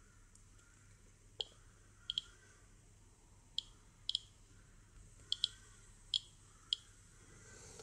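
Handheld Geiger counter dosimeter clicking through its speaker at random intervals, about ten short high-pitched clicks, some in close pairs: the count rate of natural background radiation.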